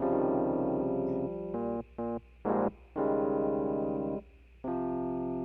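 Electric keyboard playing sustained chords of about a second each, with a few short stabbed chords between them; each chord stops sharply rather than fading. A steady low hum runs underneath.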